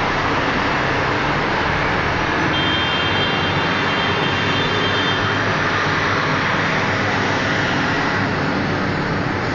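Steady road traffic from a busy city street: a continuous wash of car and truck engines and tyres, with a thin high-pitched tone for about three seconds in the middle.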